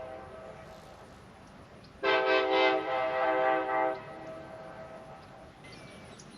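Big Bore Nathan K5LA five-chime train horn: the tail of one blast fades out, then about two seconds in a loud blast of the full chord sounds for about two seconds and cuts off, with its lower notes lingering faintly after.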